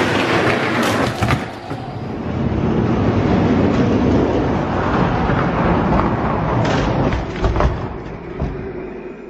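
Two die-cast toy monster trucks rolling fast down a plastic Hot Wheels track, a steady rattling rumble of plastic wheels on the track with sharp clicks at the joints. Near the end, knocks as they reach the finish gate and end stop, then the rumble dies away.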